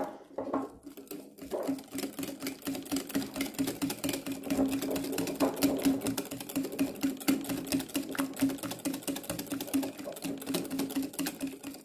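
Wire whisk beating egg yolks and mustard in a glass bowl for mayonnaise: rapid, rhythmic clicking of the wires against the glass, kept up without a break.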